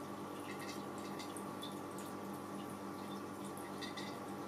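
Light scattered clicks and scrapes of a cat's paw and claws against a glass vase, over a steady low hum in the room.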